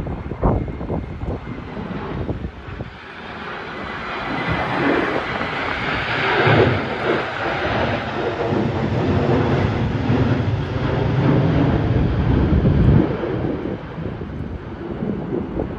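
Jet engines of a Boeing 737-800 at climb power as it passes overhead after a go-around. The roar builds from about three seconds in and stays loud, with wind buffeting the microphone at the start.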